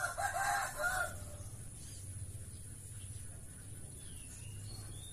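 A rooster crowing once, a wavering call lasting about a second at the start, followed by quiet steady outdoor background.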